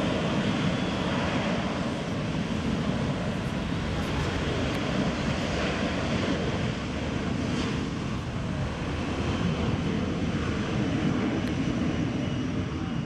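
Boeing 737-400's CFM56 jet engines running steadily at taxi power as the airliner rolls along the airfield.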